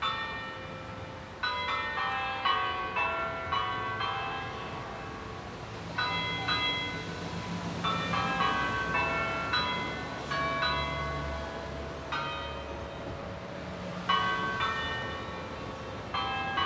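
Church bells ringing in quick runs of strikes on several different notes, a new run every few seconds with short lulls between them, each strike ringing on. A low rumble sits underneath through the middle.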